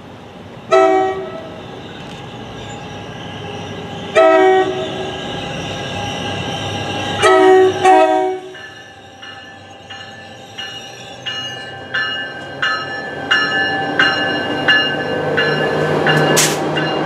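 An NJ Transit ALP-45DP locomotive approaching on diesel power sounds its air horn in four blasts, two long followed by a short and a long, the grade-crossing signal. Then its bell rings steadily, about one ding every 0.7 seconds, while the diesel engine drone grows louder as the locomotive passes close by, with a brief sharp noise near the end.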